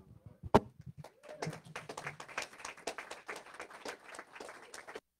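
A handheld microphone set down on a wooden pulpit makes one loud knock about half a second in, then a congregation applauds with dense clapping that cuts off abruptly near the end.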